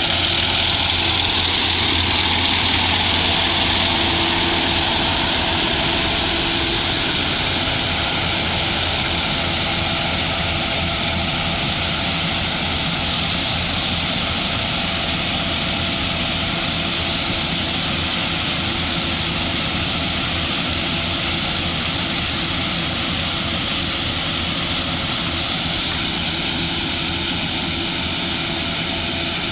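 Engine of a rice-harvesting machine running steadily under load: a constant drone with a strong hiss over it, a little louder in the first few seconds.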